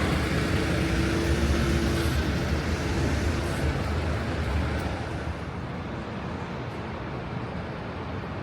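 Low, steady rumble of a subway train running, with a humming tone that fades over the first few seconds; the rumble grows quieter about halfway through.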